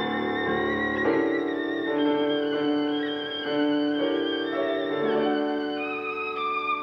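Violin playing a melody of long held notes, moving to a new note about once a second.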